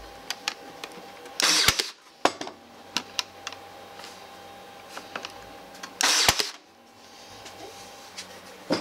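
Cordless brad nailer firing twice, about four and a half seconds apart, each shot a short whirring burst ending in a sharp snap as it drives a brad into the drawer's glued wood joint. Light clicks and knocks of handling come between the shots.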